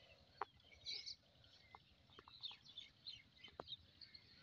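Faint small-bird chirping, many short high chirps scattered throughout, with two sharp clicks, one about half a second in and one near the end.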